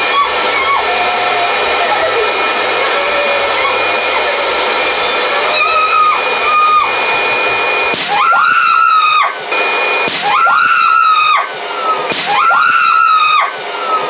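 An electric blower runs with a steady whine, inflating a giant balloon. About eight seconds in, women give three long, high-pitched screams in a row, each over a second long.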